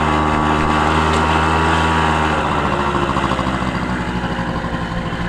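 Vehicle engine running with a steady hum. About two and a half seconds in, the sound changes to a rougher, pulsing note.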